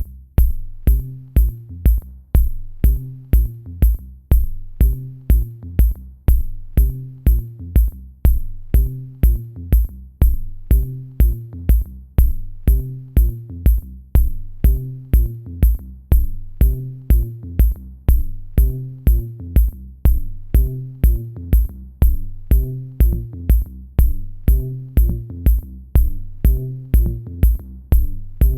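Electro dance track: a drum-machine kick drum beating steadily about twice a second under a synth bass line and chords, with crisp high hi-hat ticks.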